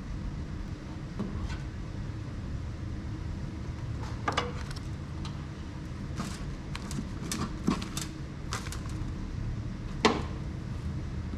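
Scattered clicks and light knocks of small parts being handled during wiring work, the sharpest one about ten seconds in, over a steady low hum.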